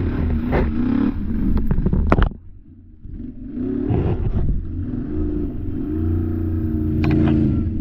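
A Can-Am ATV's V-twin engine revs hard under load, with a few sharp clatters in the first two seconds. It drops off abruptly about two seconds in, then pulls again and holds a steady high rev.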